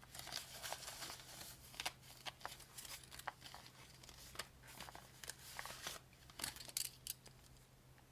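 Paper banknotes rustling and crinkling as a stack of bills is handled and slid into a clear plastic binder pocket, in a run of short, irregular rustles and ticks. A faint steady low hum sits underneath.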